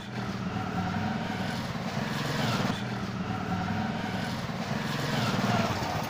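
Motorcycle engine running as the bike rides up the lane and past, growing a little louder as it comes near.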